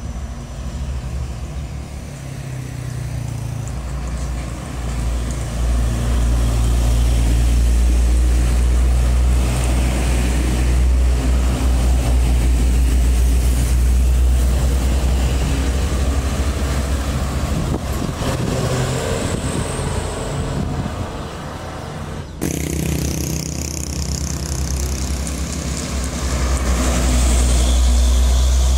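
Diesel trucks passing close by one after another, with a low engine drone and tyre noise that swell as each nears; a Mitsubishi Canter box truck passes midway. The sound breaks off suddenly about two-thirds through, then builds again as a heavier truck goes by.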